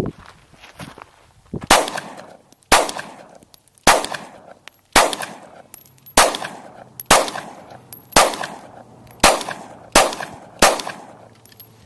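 Glock 26 9mm pistol fired ten times at a steady pace, about one shot a second, each crack followed by a short echo.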